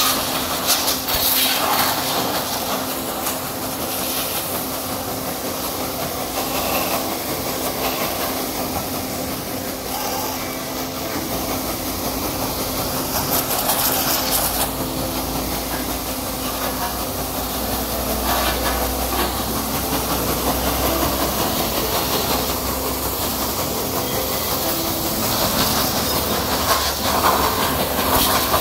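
High-pressure washer running with a steady hum while its water jet hisses against a motorcycle. The spray noise swells and fades.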